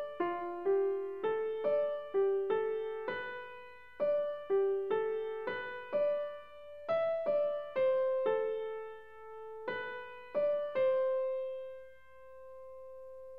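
Background music: a melody of struck piano-like keyboard notes, about two a second, each dying away, ending near the end on one long held note that slowly fades.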